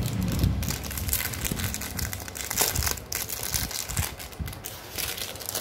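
Small clear plastic wrapper crinkling and crackling in fingers as it is handled and pulled open, in irregular bursts with the loudest crackle in the middle.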